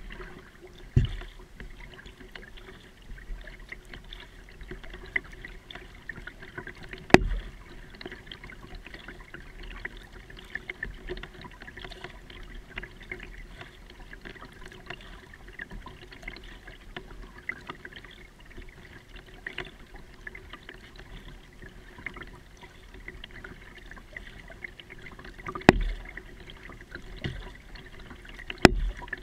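Kayak being paddled: water trickling and dripping off the paddle with the strokes, heard from a camera on the plastic bow. A few sharp knocks stand out: about a second in, near seven seconds, and twice near the end.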